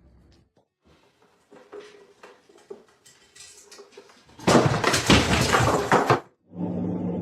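A few soft knocks, then a loud crash with clattering that lasts under two seconds and stops abruptly.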